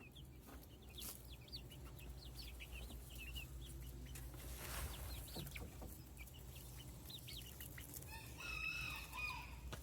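Backyard hens clucking and chirping softly over one another, with one longer, louder call near the end.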